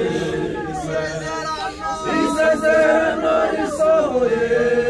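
A group of voices singing unaccompanied, several parts holding long notes together, slow and steady.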